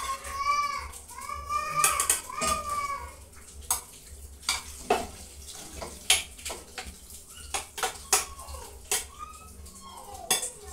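Metal spoon clinking and tapping against a steel cooking pot and bowl, a dozen or so sharp clinks spread unevenly, as lumps of moulded egusi are scraped into the pot. Several short, high wavering calls sound in the first three seconds and again near the end.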